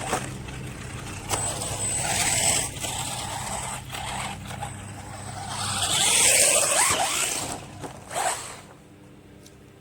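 Electric RC monster truck on a 3S battery, its motor revving up and down in whining glides while the tyres spin and scrabble on dirt, with a few sharp knocks of the truck hitting the ground. It is loudest about six seconds in and fades near the end.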